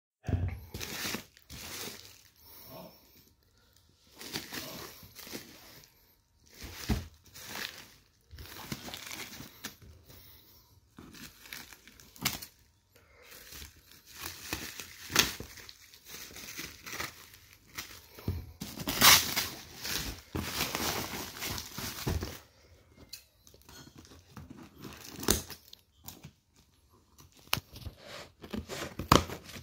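Black plastic bubble wrap and a cardboard parcel being handled and cut open with scissors: crinkling plastic and tearing tape and cardboard in irregular bursts, with a few sharp snips. The loudest tearing comes about two-thirds of the way through.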